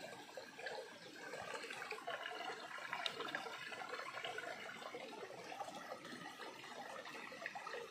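Shallow stream trickling and splashing over rocks, with small splashes and clicks as a hand moves berries about in the running water.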